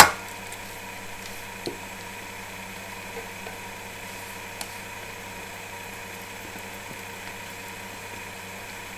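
A steady low hum and hiss with a sharp click at the very start, then a few faint soft taps as thick batter is poured from a stainless steel bowl into a cake tin and scraped out with a spatula.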